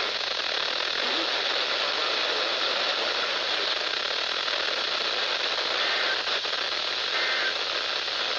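Steady hiss of static from a weather-band radio receiver, with two faint short tones partway through.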